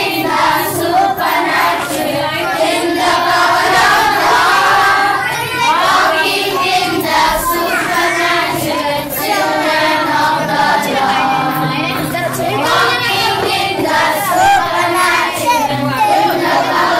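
A group of children singing a song together, with hand motions.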